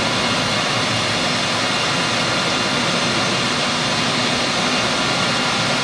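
Hanwha XD26II Swiss-type CNC sliding-headstock lathe running while machining: a steady, even mechanical whir and hiss with no separate knocks or changes.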